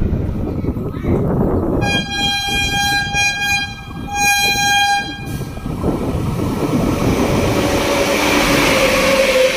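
WAP-7 electric locomotive sounding its horn in two blasts, a long one then a shorter one, as the express approaches. The rumble and rush of the train then rise steadily as the locomotive and coaches run past.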